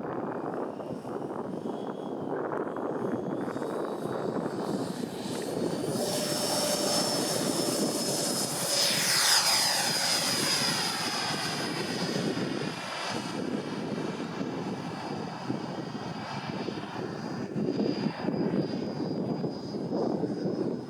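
Twin 80 mm electric ducted fans of a Freewing MiG-29 model jet in flight: a high whine that climbs in pitch over the first six seconds and then holds, over a broad rushing noise. It is loudest as the jet passes close about nine seconds in, and the whine dips slightly near the end.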